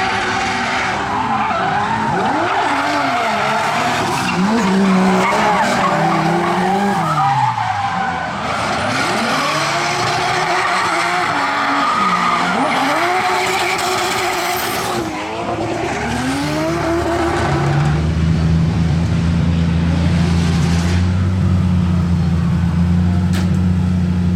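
Drift car on a practice run, its engine revving up and down again and again as the tyres screech through the slides. From about 17 seconds in, this gives way to a steady low engine drone close by.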